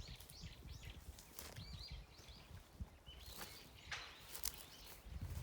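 Small birds chirping faintly: short, high, arched chirps repeated throughout, over a low rumble with a few sharp clicks.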